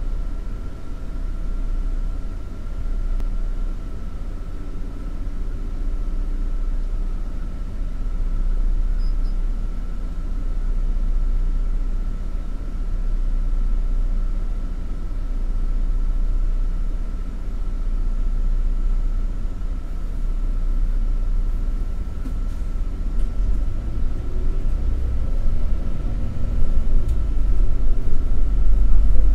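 City bus engine idling while stopped, heard from inside the cabin: a steady low rumble with a faint constant whine. Near the end the engine picks up and rises in pitch as the bus pulls away.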